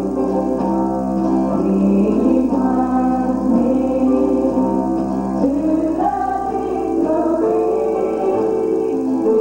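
Gospel singing: voices holding long sung notes over instrumental accompaniment.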